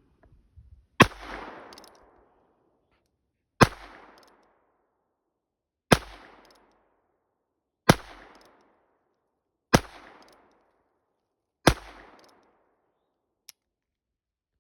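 Six shots from a Heritage .22 revolver fired one-handed, about two seconds apart, each sharp report followed by a short echo tail. A faint click comes near the end.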